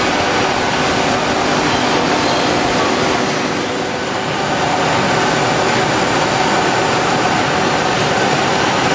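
Selco panel-dividing saw running: a steady machine hum and whir, dipping slightly about four seconds in.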